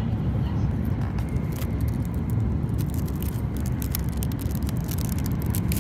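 Steady low rumble of a Shinkansen bullet train's cabin in motion, with scattered clicks and scrapes as a packaged ekiben sushi box is handled and opened on the tray table.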